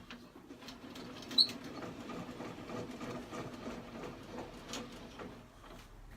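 Table saw's blade-height handwheel being cranked to raise the blade: a continuous fine rattling grind from the elevation mechanism, with one sharp click about a second and a half in.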